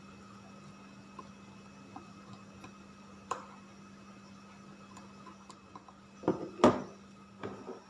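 Kitchenware being handled, with a sharp knock a little over three seconds in and a cluster of louder knocks and clatter near the end, over a steady low hum.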